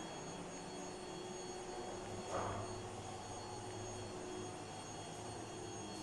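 Steady low hum of room tone with a few faint steady tones, and a brief louder noise about two and a half seconds in.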